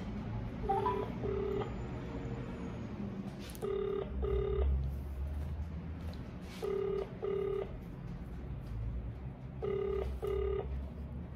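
Telephone ringback tone on an outgoing call: a double 'brr-brr' ring repeated four times, about three seconds apart, while the call waits to be answered.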